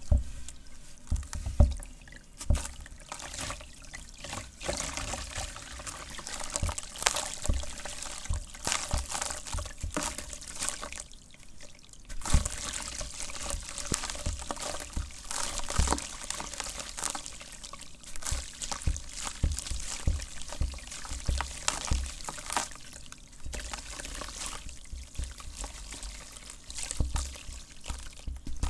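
Red dirt crumbling in water: a dense crackling fizz with many small crunches and wet pattering, dropping off briefly about eleven seconds in.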